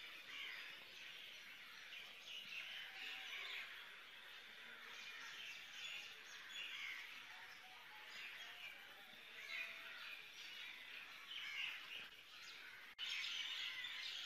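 Faint birds chirping over and over in the background, with short rising and falling chirps; the sound gets a little louder near the end.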